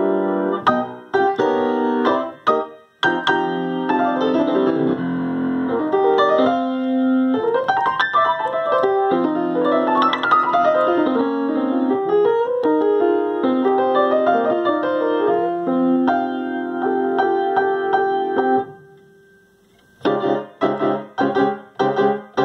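Solo piano playing sustained chords and melodic lines; the sound dies away briefly a few seconds before the end, then quick repeated chords begin, about three a second.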